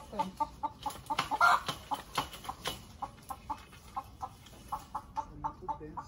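Free-range chickens clucking in a fast run of short, repeated notes, about four a second, with one louder, longer call about a second and a half in.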